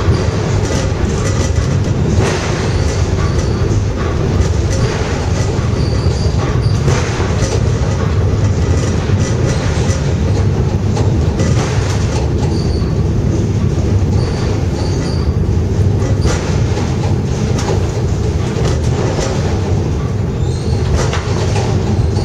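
Pic du Jer funicular car running on its rails: a steady low rumble of the wheels, with clicks over the rail joints and a few brief high wheel squeals.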